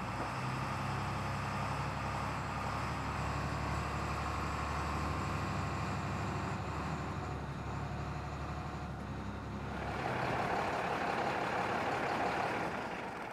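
A school bus's diesel engine running as the bus drives up, then a hiss of air brakes for the last few seconds as it comes to a stop.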